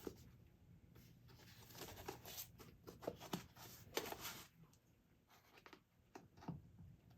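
Faint scraping and rustling of a canvas being handled and pulled over its frame, in a few short strokes separated by near silence.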